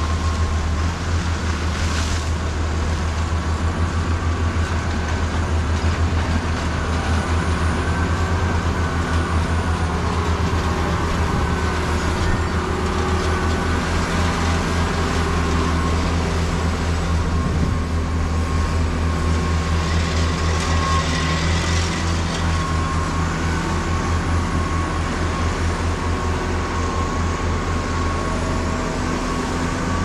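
Heavy farm machinery engines running steadily: a continuous low drone with a few steady whining tones above it.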